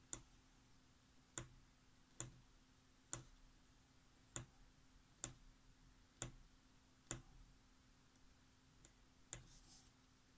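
Faint sharp clicks, about nine of them, irregularly spaced roughly a second apart with a longer gap near the end: a craft knife blade cutting into a rubber eraser in short strokes.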